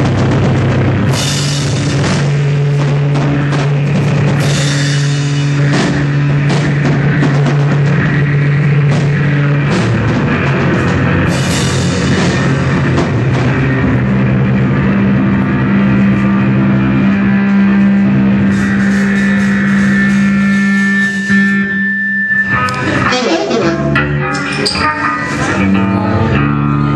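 A live noise-rock band playing loud: drum kit with repeated cymbal crashes over electric guitar and sustained low droning notes. The drone drops out briefly about three-quarters of the way through, then the band comes back in.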